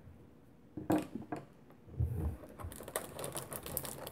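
A couple of light knocks about a second in, then a run of quick plastic clicks and crackles as a clear plastic packaging tray and the plastic bag around a handheld radio are handled in its box.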